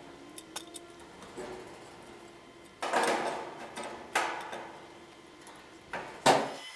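Hydraulic floor jack being pumped by its long handle to lift the front of a steel boat hull: three loud strokes, about three seconds in, just after four seconds, and near the end.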